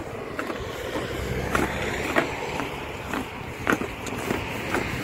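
Footsteps on pavement, a sharp step about every half second, over a steady low rumble of outdoor noise.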